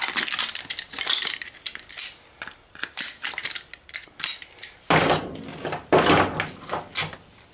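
Small metal scrap parts clinking and clattering on a steel bench and vise while a computer circuit board is handled and its copper toroid coils are knocked loose. There are irregular sharp clicks throughout, with a couple of heavier knocks about five and six seconds in.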